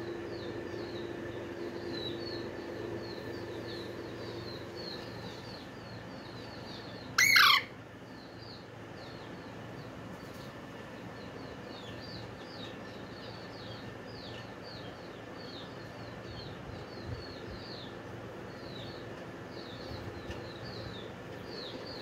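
Pet green parakeet chirping, short soft chirps repeating about once or twice a second, with one loud squawk falling sharply in pitch about seven seconds in.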